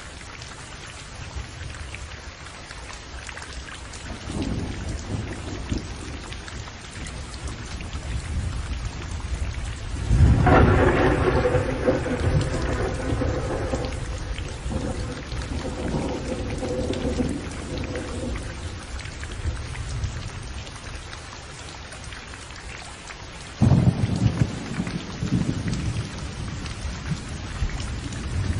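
Thunderstorm: steady heavy rain with rolling thunder. A low rumble swells a few seconds in, a loud clap about ten seconds in rumbles on for several seconds, and another sudden peal breaks out later.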